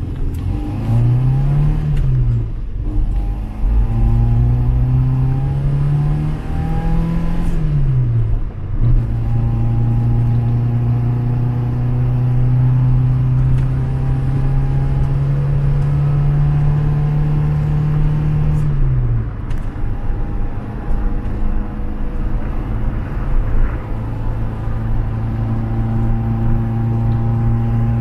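Skoda car's engine pulling on the road: the pitch climbs and drops twice in the first several seconds as it goes up through the gears, then holds steady at a cruise. It dips once about two-thirds of the way through and settles steady again. The engine is running normally with its leaking mechanical fuel pump replaced.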